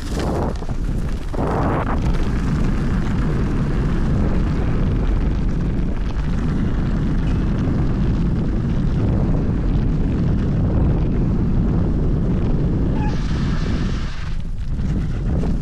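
Loud, steady wind rumble buffeting an action camera's microphone as an electric scooter is ridden off-road, with the noise of the ride mixed in. A brief hiss rises over it about thirteen seconds in.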